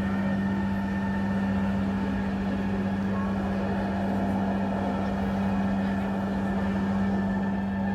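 Electronic soundscape drone: one steady low tone held at a single pitch, with a dense noisy rush beneath and around it, unchanging throughout.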